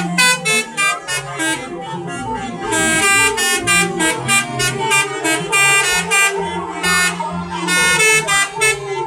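Bus telolet horn, a set of electric horns, playing a fast melodic tune of short repeated notes over a steady low tone.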